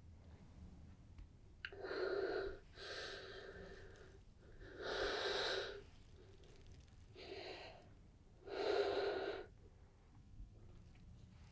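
A woman breathing heavily and tearfully in distress: five ragged, audible breaths about a second each.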